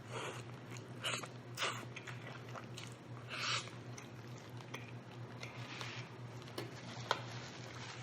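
Close-miked biting and chewing of rotisserie chicken breast, with a few short wet mouth bursts and one sharp click near the end, over a steady low hum.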